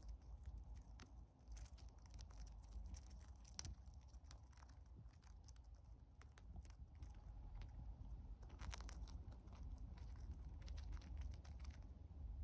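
A hamster nibbling and cracking the shell of a large sunflower seed: faint, quick, irregular crunching clicks in clusters, over a low steady hum.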